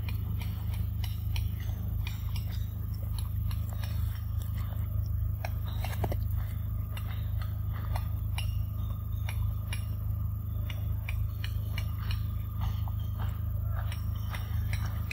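Macaque eating mango close to the microphone: irregular small wet smacks and chewing clicks, over a steady low hum.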